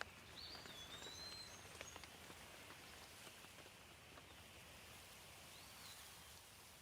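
Faint rain ambience: a soft steady patter with scattered drop ticks, and a bird giving a few short whistled calls near the start and once more near the end.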